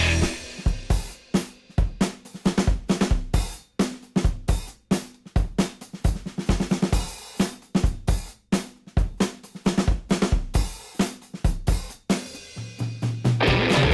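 Background rock music in a drum-kit passage: rapid snare, bass drum, hi-hat and cymbal hits, with the electric guitar coming back in near the end.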